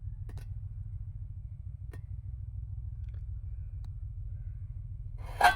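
A steady low rumble with a few faint clicks. Near the end comes one sharp clank that rings briefly, like the steel jacking-point panels being knocked together or set down.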